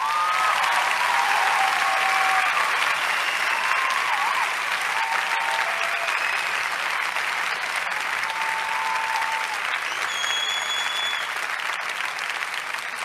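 Audience applauding steadily, starting abruptly and easing off slightly toward the end.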